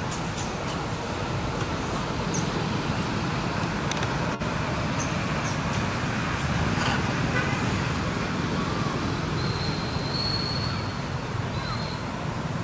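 Steady low rumbling background noise, with a few faint clicks early on and a short thin high tone that sounds twice near the end.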